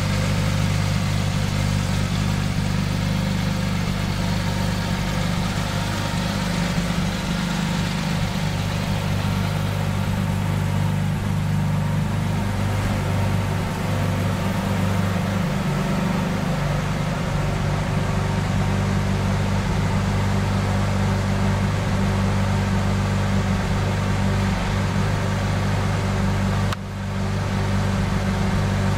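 2010 Porsche 911 GT3's 3.8-litre flat-six engine idling steadily, with a brief drop in level near the end.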